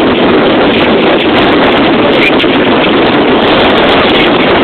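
Strong hurricane-force wind gusting and buffeting the microphone: a loud, steady rush of wind noise with no let-up.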